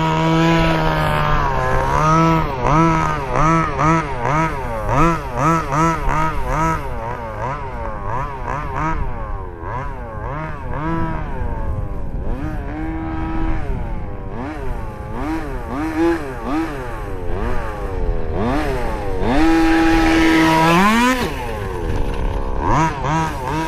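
Small two-stroke gasoline engine of a 1/5-scale RC buggy. It holds a steady note, then revs up and down in quick throttle blips about twice a second. Its revs wander as it runs, and it climbs in one long rise near the end.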